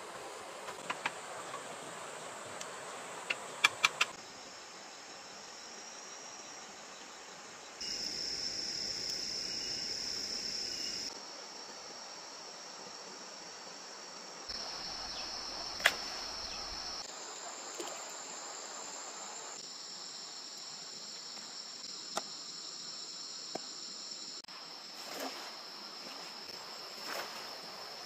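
Night chorus of crickets: a steady, high-pitched chirring whose pitch and loudness change abruptly several times, with a few sharp clicks.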